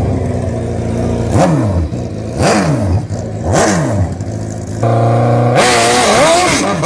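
Drag-racing motorcycle engine revved three times at the start line, the pitch sweeping down and back up each time, then held at high revs and launched hard down the strip near the end with a louder, wavering engine note.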